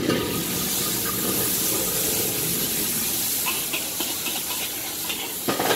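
Char kway teow noodles sizzling in a very hot wok, a loud, steady hiss that flares up suddenly at the start. A metal spatula clicks against the wok a few times in the middle, with a sharper knock near the end.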